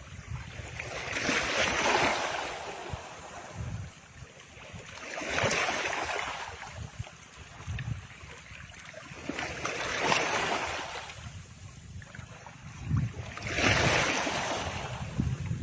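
Ocean surf, a hiss that swells and fades four times, about every four seconds, like waves washing in.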